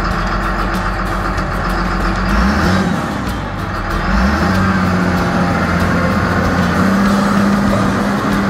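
The Cat 3204 four-cylinder diesel of a 1998 Cat IT28G wheel loader running. Its note dips briefly about three seconds in, then picks up and holds at a higher, steady pitch as the loader drives off.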